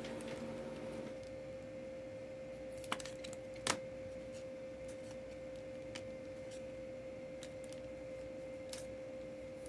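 Trading cards and their holders being handled, giving a few sharp clicks; the loudest comes about three and a half seconds in. A steady faint tone runs underneath.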